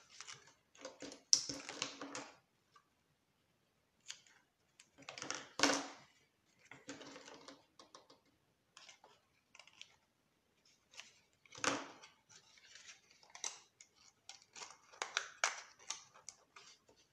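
Double-sided tape pulled from its roll and its backing peeled, then a small cardstock box folded and pressed shut by hand. The sound comes in irregular bursts of crinkling and rustling with sharp clicks, the sharpest about a second in.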